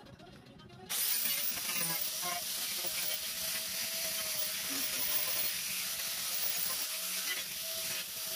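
DeWalt angle grinder with a carving disc running and cutting into a pine bowl blank: a steady, loud hiss of wood being ground away over the motor's even tone. It comes in abruptly about a second in.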